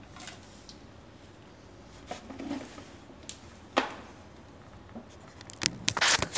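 A few light clicks and knocks as a motorcycle front fork leg is handled, with one sharp click just before the middle, then loud rubbing and bumping of a hand against the phone's microphone near the end.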